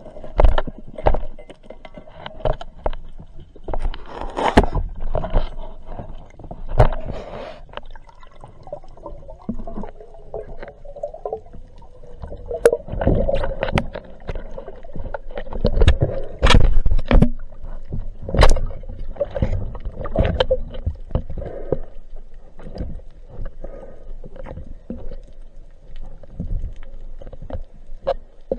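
Underwater water noise through a camera housing, gurgling and rumbling, with many sharp knocks and clicks from the speargun rig moving through the water. The louder stretches come about four seconds in and again in the middle.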